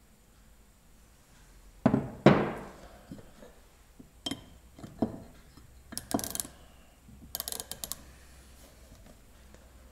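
Hardened steel parallel bars knock together and are set down on a wooden workbench: two loud knocks with a brief metallic ring about two seconds in, then several lighter knocks and clinks. Near the end comes a quick run of small clicks as the micrometer's ratchet thimble closes on a bar.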